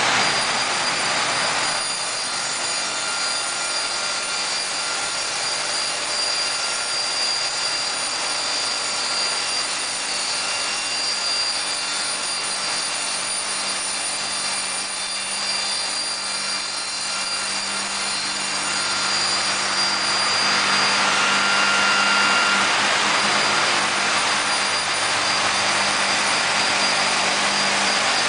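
Cork sawing machine running, its saw blades cutting agglomerated cork blocks with a steady hiss and a high whine, growing louder about two-thirds of the way through.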